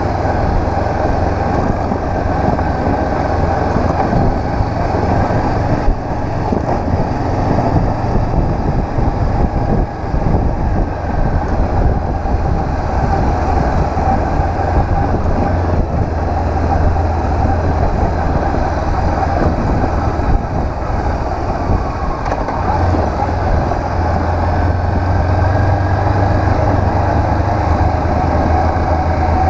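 Honda CB500X parallel-twin motorcycle being ridden: its engine runs steadily under a constant rush of wind and road noise.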